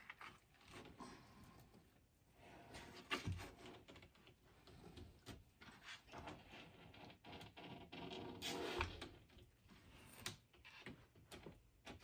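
Black-throated monitor lizard's claws scratching and scraping against the enclosure's door frame, with scattered clicks and knocks. The loudest scrapes come about three seconds in and again around eight to nine seconds.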